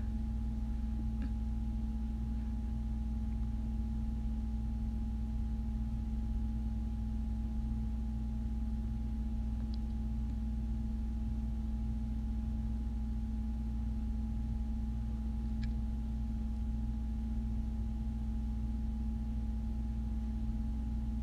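A steady low electrical or mechanical hum with a few constant tones, unchanging throughout, with two or three faint ticks.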